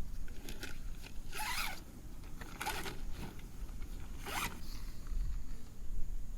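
A zipper being pulled in three quick strokes, about a second apart.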